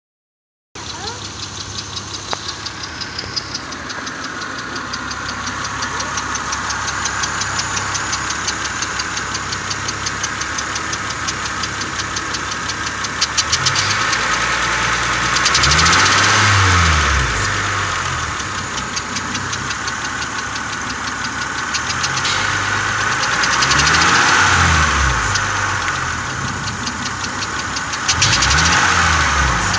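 2000 Honda Accord's V6 engine idling with a fast, even ticking, revved up and back down three times. The owner suspects an exhaust leak, possibly at a spark plug (the plugs were replaced two weeks earlier) or a vacuum hose.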